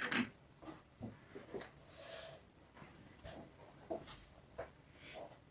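Faint, irregular small clicks and soft rustling of quilted fabric and tools being handled at the sewing machine; the machine is not stitching in a steady run.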